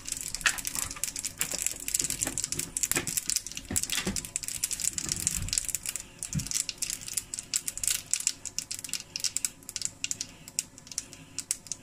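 Hot groundnut oil crackling and sizzling in a small pan: a South Indian tempering of mustard seeds, urad dal and dried curry leaves frying, with the mustard seeds popping. The crackle is dense at first and thins to scattered pops about halfway through.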